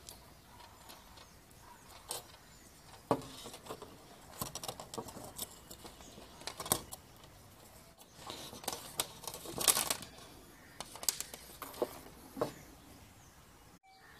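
Scattered light clicks, taps and scrapes of a screwdriver and wires being handled on a wooden tabletop as wires are fastened under small terminal screws.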